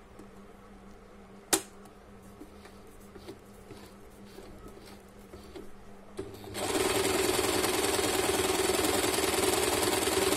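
A few faint clicks and one sharp click about a second and a half in, then about six and a half seconds in the Usha Janome Stitch Magic electric sewing machine starts and runs steadily, sewing a decorative stitch pattern.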